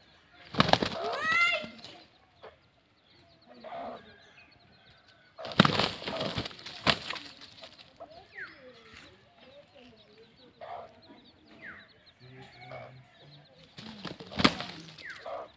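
Two fighting roosters flapping their wings hard as they leap at each other, in three loud bursts: about half a second in, around six seconds, and near the end. A brief rising squawk comes during the first burst.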